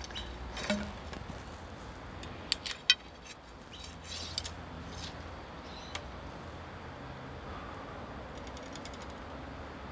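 A few short, sharp clicks and light rattles over a faint steady background; the loudest are two clicks about half a second apart, roughly two and a half seconds in.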